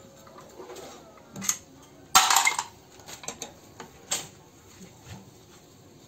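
Metal hand tools clinking and clattering against a stripped engine block and its crankshaft bearing caps. The loudest is a short clatter about two seconds in, followed by several lighter clinks.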